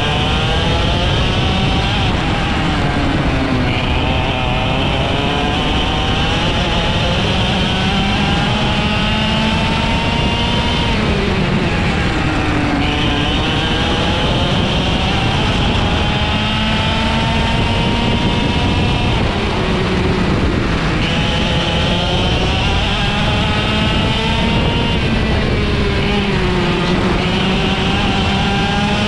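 IAME X30 125cc two-stroke kart engine running at racing speed. Its pitch climbs steadily, drops sharply and climbs again about four times.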